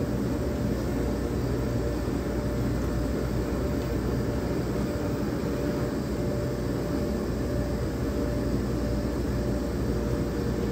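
Commercial clothes dryers running, their drums tumbling loads of clothes: a steady mechanical drone with a constant hum in it.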